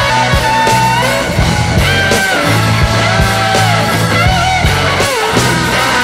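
Background rock music with a steady beat, a bass line and a bending lead guitar melody.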